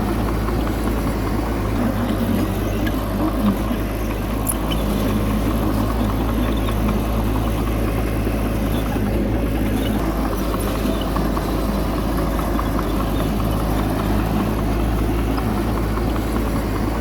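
Heavy diesel engine of earthmoving machinery running steadily, a low even drone with no change in speed.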